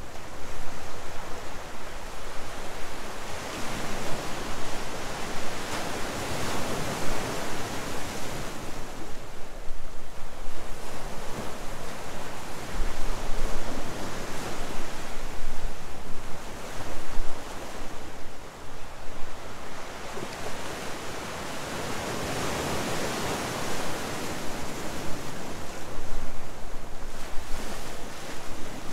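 Ocean surf breaking and washing over a rocky shoreline, rising and falling in three slow surges.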